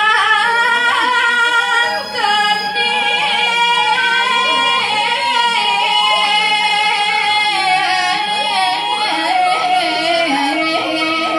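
A woman solo-singing Balinese geguritan verse into a microphone: long held notes with slow ornamented turns, settling onto a lower held note near the end.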